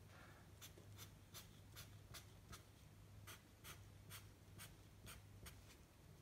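Faint scratching of a drawing tool on paper in quick short strokes, about two or three strokes a second.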